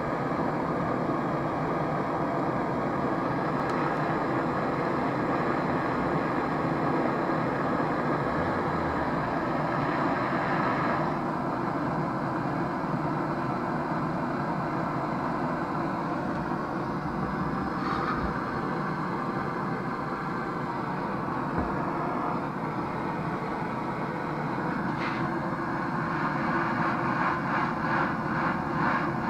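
Handheld gas-canister blowtorch flame burning with a steady hiss while it heats a copper pipe joint for soft soldering. Near the end it grows louder and flutters.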